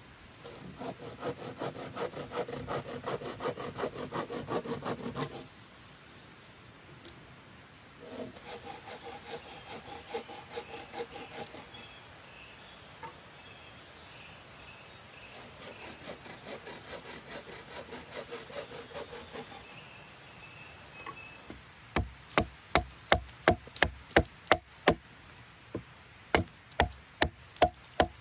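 Wooden frame bow saw cutting through a thin birch pole in quick back-and-forth strokes, in three spells with pauses between. Near the end a hatchet chops into a log with sharp knocks, about three a second, in two runs.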